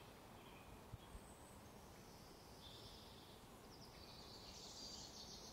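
Near silence: faint background hiss with faint high chirping from distant birds, growing in the second half, and two faint low knocks about a second in.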